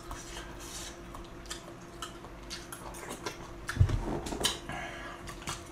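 Close-miked eating of jjamppong noodle soup: chewing and wet mouth clicks, with a louder burst of eating noise about four seconds in.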